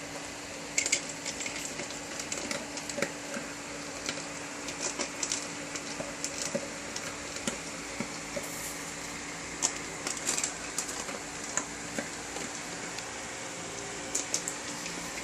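A German Shepherd eating dog food, making irregular clicks and crunches over a steady background hum.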